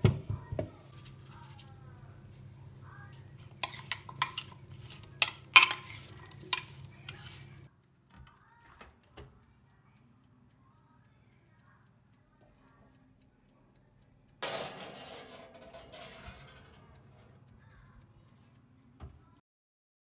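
Kitchen dishes and utensils clinking and knocking: a loud knock at the start and about half a dozen sharp clinks a few seconds in, over a low steady hum that stops about eight seconds in. After a quiet stretch comes a burst of noise lasting about two seconds that fades away, then one short knock near the end.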